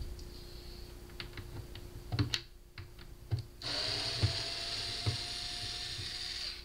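A few clicks and knocks of handling, then about halfway in a cordless drill or power screwdriver starts and runs steadily with a slightly rising whine, backing screws out of a speaker cabinet.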